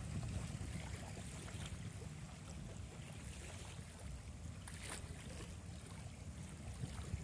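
Wind rumbling on the microphone over river water lapping gently at the shore, with a few faint splashes or ticks.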